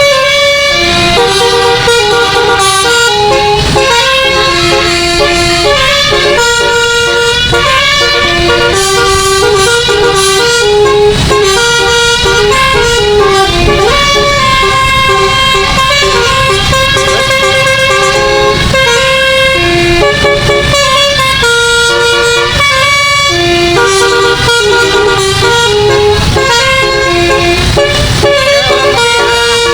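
A bus's 12-note basuri telolet musical air horn playing a tune without pause, one steady note after another in quick changes, over a low rumble.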